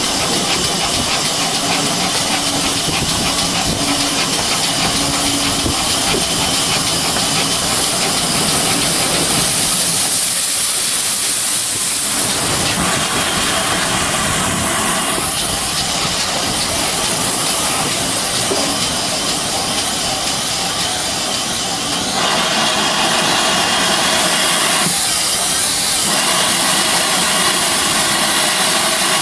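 Steam locomotive hissing steam loudly and steadily, with a change in the hiss about ten seconds in and again past twenty seconds.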